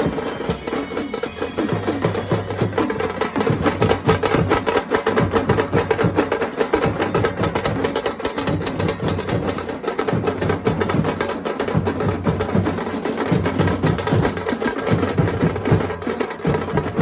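Traditional Maharashtrian drum troupe (sambal and dhol pathak) playing a fast, continuous beat of rapid drum strokes.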